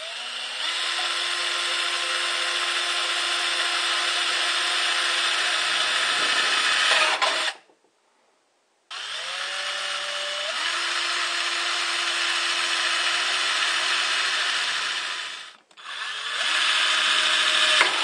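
Electric drill boring small holes through the thin steel side of a large metal can, in three long runs with short pauses between; the motor whine climbs as it spins up at the start of each run.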